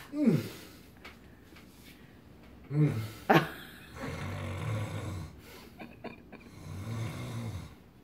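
A man acting out snoring while an anti-snoring chin strap holds his jaw shut. A short falling groan at the start, two sharp snorts about three seconds in, then two long, low, rasping snores.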